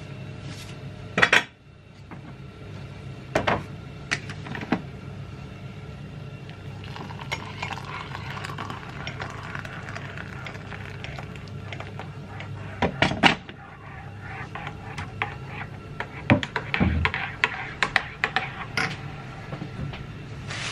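Metal teaspoon clinking against a ceramic mug, with a stream of hot water poured from a kettle into the mug in the middle, then a quick run of clinks near the end as the spoon stirs the drink.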